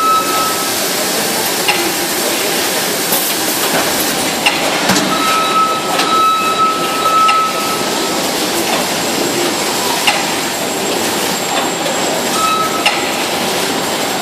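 Two-column baler running: a steady mechanical hiss and rumble with sharp knocks or clanks every second or so. A high steady whine comes and goes several times.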